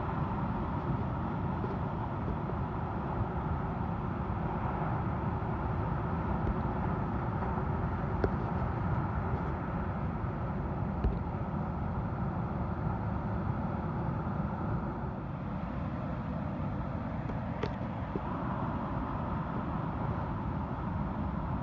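Surf breaking on a beach, a steady low roar of waves with a few faint clicks.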